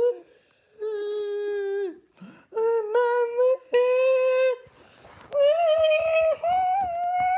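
A young person singing wordless held notes in a high voice: five long notes of about a second each with short breaks, the last two pitched higher.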